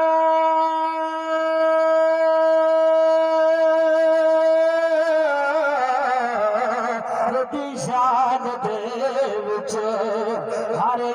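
A man's voice singing a naat without instruments: one long note held steady for about five seconds, then sliding down into a wavering, ornamented melodic run.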